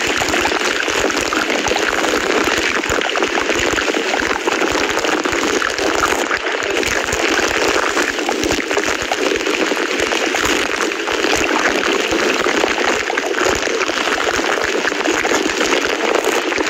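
Steady, unbroken sound of rushing water, like heavy rain.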